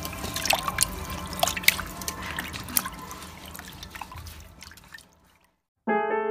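Water sloshing and dripping in a steel pot as a hand rubs whole fish around in salted water to wash them, with many small splashes that thin out and stop about five seconds in. Piano music starts just before the end.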